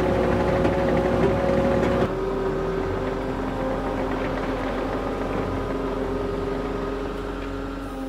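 Kato compact track loader's 65-horsepower Kubota diesel engine running steadily while the machine carries a loaded pallet. About two seconds in, its note shifts lower and gets a little quieter.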